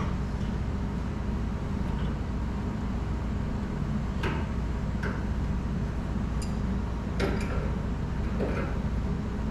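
Steady low hum, with about five light clicks and knocks scattered through the second half from hands working on the kitchen sink plumbing.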